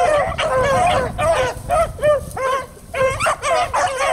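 A pack of beagles baying together on a rabbit's trail: many short, overlapping bawls several a second, with a brief lull about two and a half seconds in.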